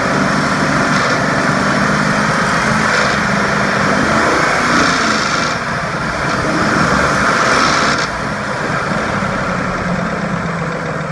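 Ford F-150's 5.4-litre V8 engine running with the revs raised, then dropping back about eight seconds in. It is showing the rattle it makes when let off the gas, which the owner traced to a broken timing chain tensioner.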